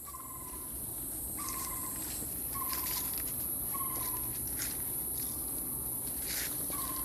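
Forest insects keeping up a steady, high, shrill drone, with a short, slightly falling whistled call repeated about once a second. A few brief brushing or crunching noises come through, near the middle and toward the end.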